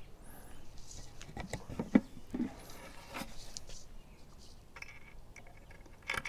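Scattered light knocks and clicks of a wooden camera-box door being handled, with a sharper knock about two seconds in.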